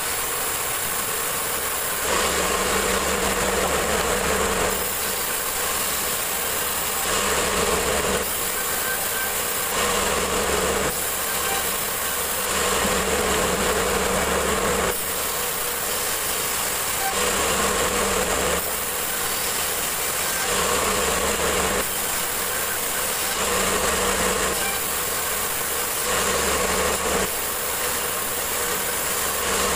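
Band sawmill running, its blade cutting through wooden slabs as they are fed through. The machine noise stays steady and steps slightly louder and softer every second or two.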